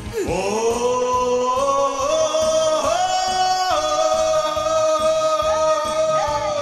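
Male trot singer belting long, held high notes into a microphone, the pitch stepping up about three seconds in, over backing music with a steady beat.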